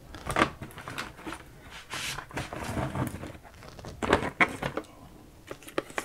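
Clear plastic software cases being handled and set down on a tabletop: scattered light clacks and scrapes of hard plastic, with some rustling.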